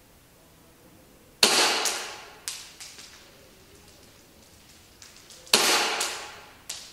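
Tokyo Marui S&W M&P9 gas blowback airsoft pistol fired twice, about four seconds apart. Each shot is a sharp crack of the slide cycling that rings away over about a second. A fainter click comes about a second after each shot.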